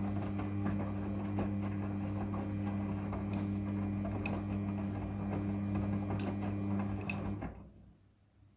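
Midea front-loading washing machine running with a steady motor hum and scattered clicks, which stops abruptly about seven and a half seconds in.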